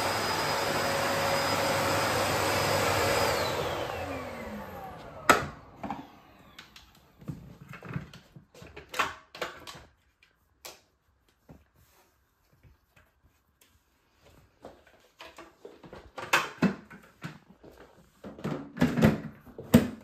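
Bosch BGS21X320 bagless cylinder vacuum cleaner running steadily, then switched off about three seconds in, its motor winding down to a stop. After that come scattered plastic clicks and knocks as the clear dust container is taken out, opened and put back.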